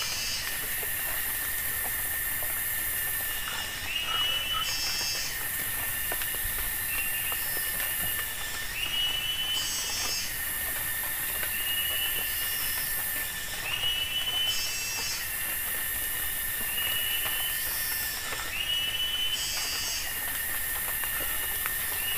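Tropical forest insects calling: a very high buzzing that runs for a few seconds and breaks off, over a steady high whine, with short chirps repeating about every two seconds.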